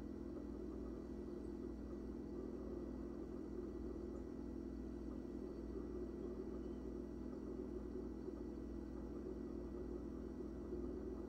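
A steady low hum, with a few faint constant tones over it, unchanging throughout.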